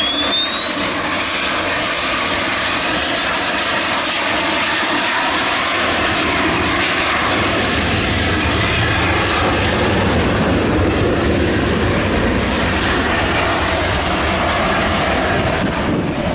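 Cessna 525 CitationJet's twin rear-mounted Williams FJ44 turbofans at takeoff power during the takeoff roll and climb-out. A high whine rises in pitch over the first couple of seconds as the engines spool up, then holds steady over a loud, even engine noise.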